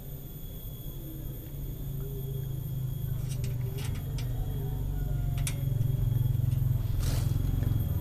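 Low, steady background rumble that slowly grows louder, with a few faint clicks.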